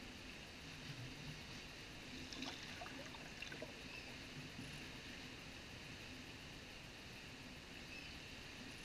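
Steady, muffled underwater noise of the pool water as heard with the microphone submerged, with a few faint clicks and taps between about two and a half and three and a half seconds in.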